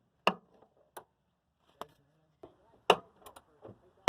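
About half a dozen sharp, irregularly spaced knocks and clicks from hand-tool work on an old truck, the loudest two a quarter second in and just before three seconds in.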